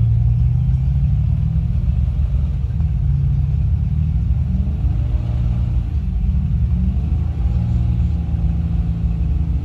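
An off-road rock crawler's engine running under load as it climbs a steep rock ledge, over a steady low rumble. Its pitch rises and falls a few times past the middle as the throttle is worked.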